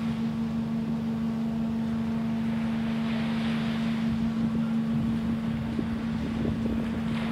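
Cargo ferry's machinery running with a steady hum on one constant low tone over a rumble while its deck crane hoists a car, with wind gusting on the microphone.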